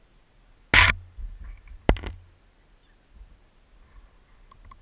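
Two loud knocks about a second apart, with a low rumble and scuffing between them: a mountainboard jolting over rough ground.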